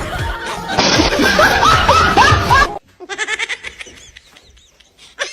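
People laughing: a dense burst of laughter that cuts off abruptly about halfway through, followed by a quieter run of short, rhythmic laughs.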